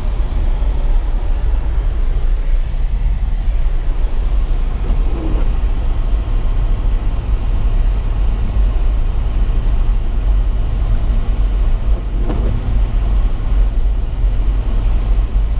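A steady low rumble of a running vehicle engine.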